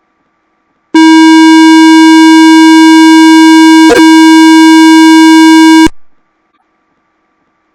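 A very loud electronic beep: one steady, buzzy tone held for about five seconds, with a brief click partway through, then cutting off suddenly.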